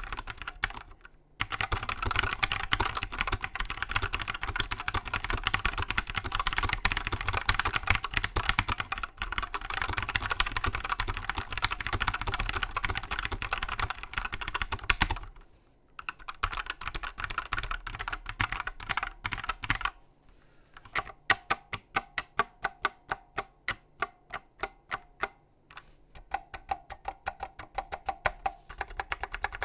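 Typing on a custom-built mechanical keyboard with a Winkeyless b.face controller board: fast, continuous keystrokes for most of the first half with a short pause, then slower single key presses, about two to three a second.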